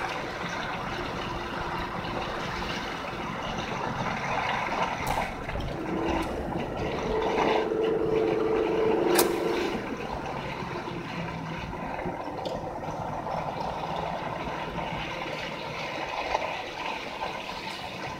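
Car driving slowly over a snow-covered lane, heard from inside the cabin: a steady mix of engine and tyre noise on snow. A steady tone sounds for a few seconds near the middle and ends with a sharp click.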